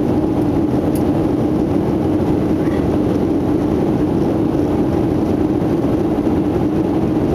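Steady cabin noise inside a Boeing 737-700 in climb: the drone of its CFM56-7B turbofan engines and the rush of air past the fuselage, with a constant low hum running through it.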